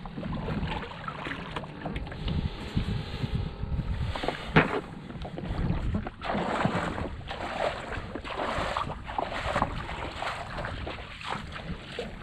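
Wind buffeting the microphone in uneven gusts, with a single sharp knock about four and a half seconds in.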